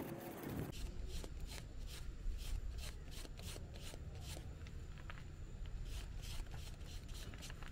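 P320 sandpaper rubbing back and forth over a car's painted plastic bumper, in short scratchy strokes about three a second, starting about a second in. It is sanding down a scrape in the paint before the repair is painted.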